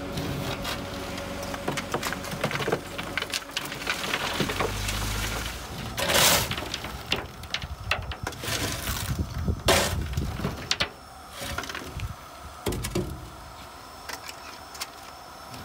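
Lumps of coal clattering and a shovel scraping through a heap of coal as a bucket is filled; the loudest clatter comes about six seconds in, and the sound thins to scattered knocks near the end.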